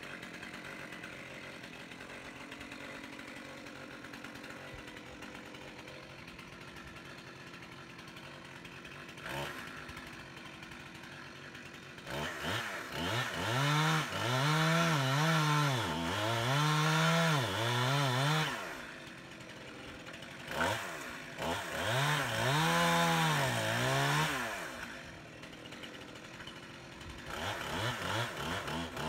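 Stihl chainsaw idling steadily, then revved up and cutting into an oak limb about twelve seconds in, its pitch rising and falling with throttle and load. It drops back toward idle twice between cuts and goes back into the wood near the end.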